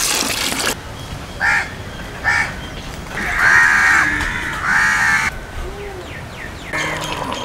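A crow cawing: two short caws, then two longer, harsh caws, over steady background noise.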